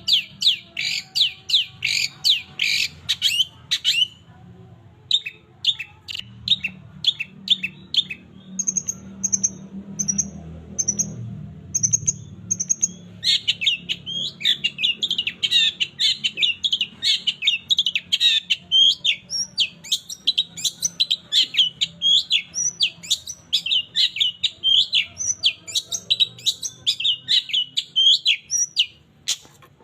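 Long-tailed shrike (cendet) singing a fast, chattering run of chirps. It pauses briefly about four seconds in, then gives a short series of about seven high, thin notes before the rapid chirping resumes.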